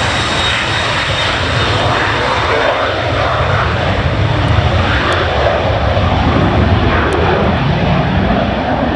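Airliner's jet engines running loud and steady as the plane passes, a dense rush of noise with a deep low rumble and a thin high whine that fades over the first couple of seconds.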